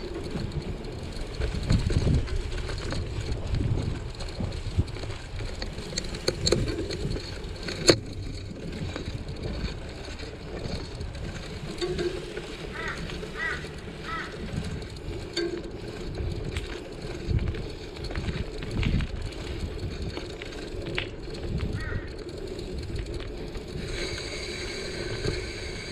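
Bicycle riding over a grass path and onto a paved driveway: a continuous low rumble with irregular knocks and rattles from the bumps. A few short high chirps are heard around the middle.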